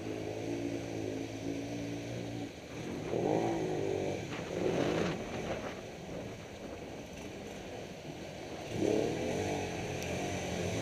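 ATV (quad bike) engines running in shallow lake water with water splashing, the revs surging in bursts about three seconds in, again about a second and a half later, and near the end as a quad drives out of the water.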